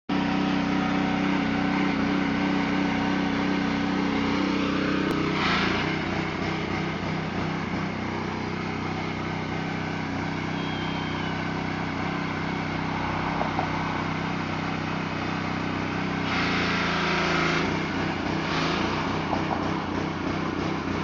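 Pressure washer's small engine running steadily while the wand sprays the siding, with a few brief surges of hiss and a change in the engine note about six seconds in and again around sixteen seconds.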